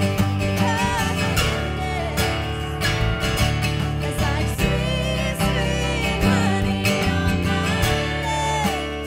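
Live worship band music: a song carried by acoustic guitar over steady bass, with a wavering sung melody line above.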